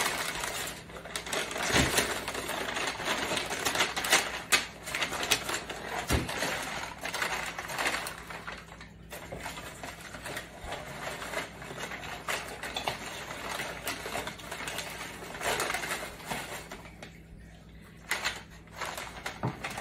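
Grease-soaked butcher paper and aluminium foil crinkling and rustling as a rack of smoked beef short ribs is unwrapped, with many sharp crackles.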